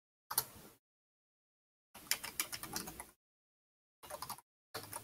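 Typing on a computer keyboard: four short bursts of rapid key clicks, cutting off to dead silence between bursts.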